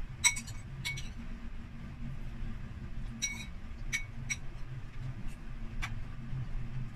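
Metal spoon clinking against a ceramic bowl, a scattered run of short ringing clinks, bunched in the first second and again around three to four seconds in, with a last one near six seconds. A steady low hum sits underneath.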